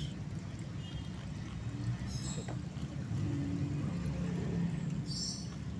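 Steady low engine hum of road traffic, with two brief high chirps about two and five seconds in.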